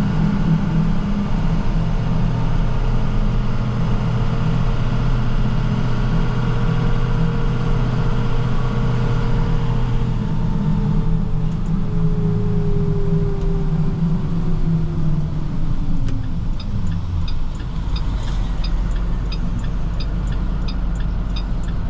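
Plow truck engine running while driving. In the second half its whine falls in pitch over several seconds as the truck slows. A regular light ticking, about one and a half a second, comes in about halfway through.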